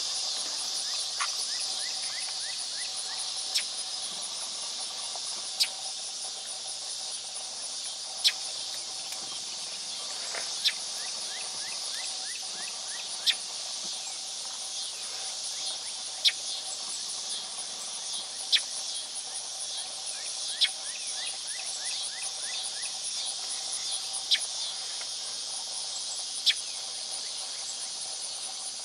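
Steady, high-pitched chorus of late-summer field insects, broken by a sharp click every two to three seconds.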